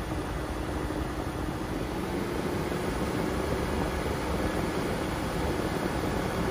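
Steady engine and tyre noise of a car driving along a paved road, heard from inside the cabin.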